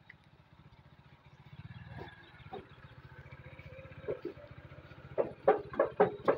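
Motorcycle tricycle's engine running with a steady low pulse. About five seconds in, a quick run of five or six loud short sounds, about three a second, stands out above it.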